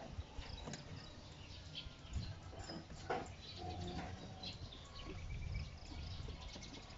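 Faint scattered clicks, taps and rustles of a hand groping inside a car's engine bay, feeling for the fog lamp bulb socket behind the front bumper.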